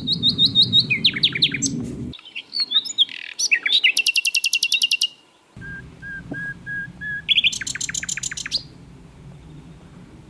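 A songbird singing varied phrases: fast trills of rapidly repeated high chirps, with a run of about six short, even whistled notes in the middle.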